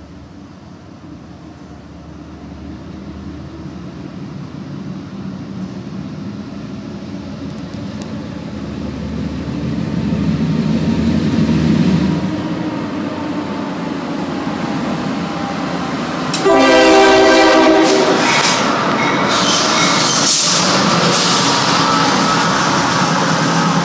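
CSX freight train led by two diesel locomotives approaching, the engine rumble growing steadily louder. About two-thirds of the way through the horn sounds once for about two seconds, the loudest thing here, and loud engine and wheel noise follows as the train comes close.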